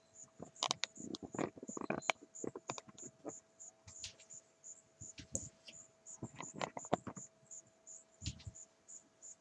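Irregular light clicks, knocks and rustles of a camera being handled and turned around over a workbench, over a faint steady hum.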